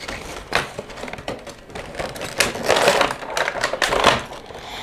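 Small cardboard figure box being opened by hand: an uneven run of sharp clicks and taps from the paperboard flaps, with rustling of cardboard and its clear plastic window, busiest just past the middle.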